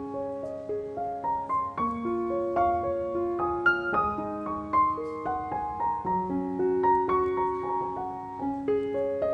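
Background piano music: a calm, steady run of single notes over held lower notes.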